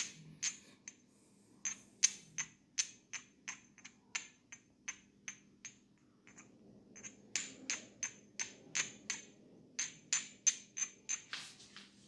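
A crystal wand tapped against a hard hand tool in a steady series of sharp, ringing clinks, about three a second, with a short pause around the middle.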